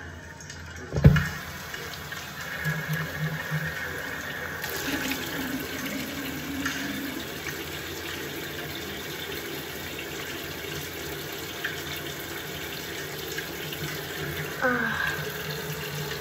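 A knock about a second in, then a bathroom sink tap running steadily into the basin while a face cloth is rinsed and used to wash the face.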